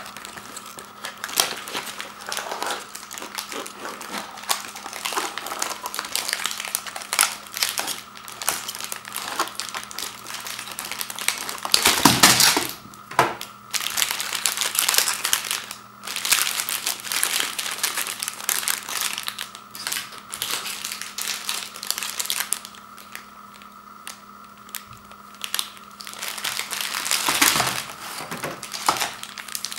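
Plastic-wrapped peanut butter sandwich cracker packs crinkling and rustling as hands pull them from a cardboard box and handle them, with the loudest rustles about twelve seconds in and again near the end.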